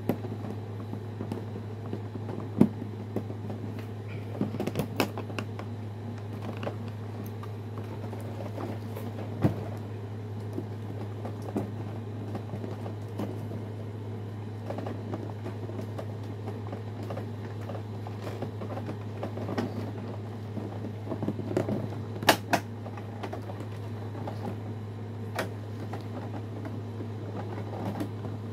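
Toy box packaging being worked open by hand: scattered clicks, taps and creaks of cardboard and plastic, a cluster of them a little after 20 seconds, over a steady low hum.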